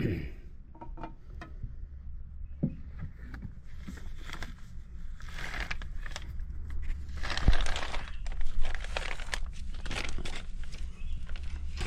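Handling noises: scattered clicks and knocks with bursts of rustling, over a low steady hum.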